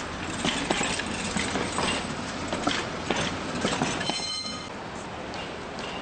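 Light-rail train moving along street track, its wheels clacking and knocking irregularly over the rails. A short, high ringing tone sounds about four seconds in, after which only a steadier rumble remains.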